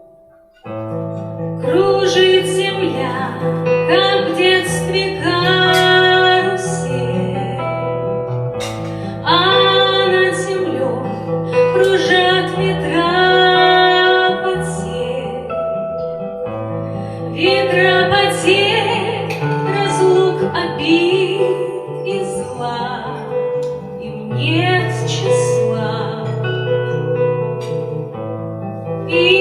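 A woman singing a slow song in Russian to acoustic guitar accompaniment, starting about a second in.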